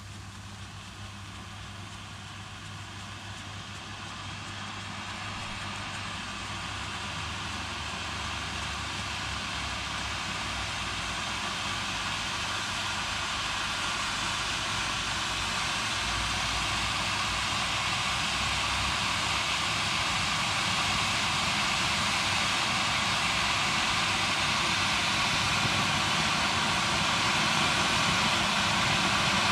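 A steady rushing, engine-like noise that grows steadily louder throughout, with no bangs or breaks.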